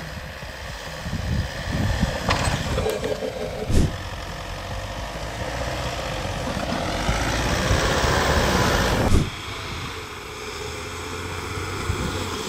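Isuzu D-Max pickup's engine working hard in deep snow, rising and falling in surges, with a sharp knock about four seconds in. A longer, louder push from about six and a half seconds cuts off suddenly near nine seconds.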